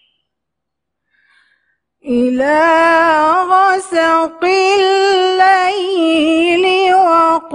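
A woman's voice reciting the Quran in melodic tilawah style. After about two seconds of near silence, a long held, ornamented chanted phrase begins, its pitch wavering and gliding.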